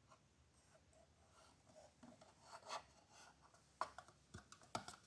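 Faint rubbing and scratching at a laptop's stuck touchpad button as it is worked on with rubbing alcohol, followed by a few short sharp clicks in the last second or so.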